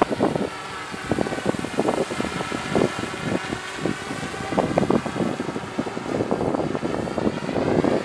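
Quadrotor's propellers whirring, their pitch sinking through the middle and rising again near the end as the craft changes thrust. Gusty wind rumbles on the microphone underneath.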